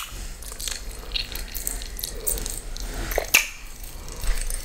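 Close-miked wet mouth sounds of someone biting and sucking on a giant gummy bear: scattered sticky smacks and clicks, one sharper click a little after three seconds in.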